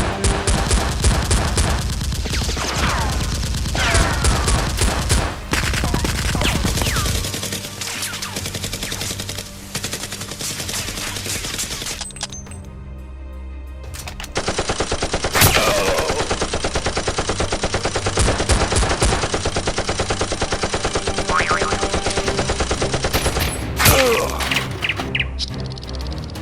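Rapid automatic gunfire sound effects, long bursts of shots over background music, with a brief lull about twelve seconds in before the firing starts again.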